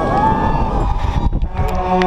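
Wind rushing over a head-mounted action camera's microphone during a bungee jumper's freefall, with a drawn-out yell over it.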